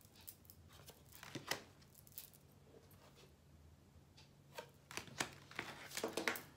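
Near quiet broken by faint, scattered clicks and rustles, which come closer together near the end.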